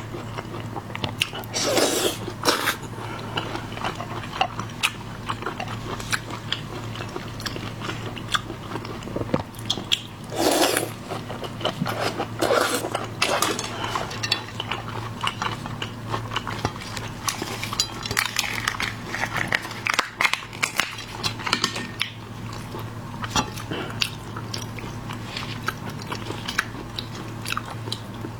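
Someone eating shellfish: biting and chewing with many small wet clicks, a few louder crunches and some clinks of cutlery or dishes.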